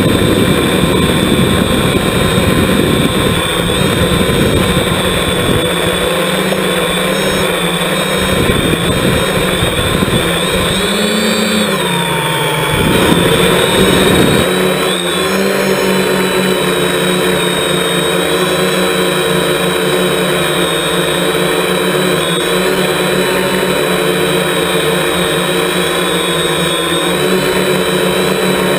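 Electric motors and propellers of a hexacopter drone, heard from its own onboard camera: a steady multi-tone whine whose pitch rises and then dips briefly a little under halfway through as the throttle changes. Gusty low buffeting rumbles under it for the first ten seconds or so.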